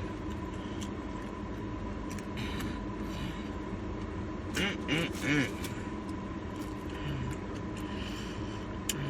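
Steady low hum of a car interior with a constant faint high-pitched whine, and a few short vocal sounds about five seconds in.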